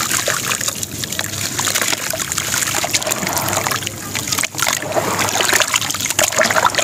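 Dry sand-cement chunks crumbling in the hands, with grit and powder pouring into a basin of water in many small crackles and splashes. Near the end the hands work in the water.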